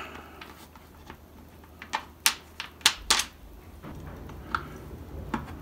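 A handful of sharp little clicks and taps, several of them close together in the middle, from small wing screws being handled and started by hand in a foam-and-plastic model airplane wing.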